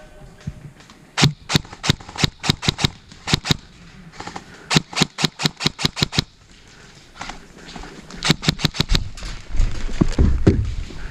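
Airsoft guns firing in several quick strings of sharp, snapping shots, with one fast run of about seven shots a second in the middle. A low rumble rises near the end.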